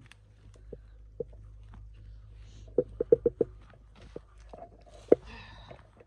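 Hand pruning loppers snipping through small tree branches: a quick run of four or five sharp snips about three seconds in and one loud snip about five seconds in, followed by a short rustle of twigs and leaves.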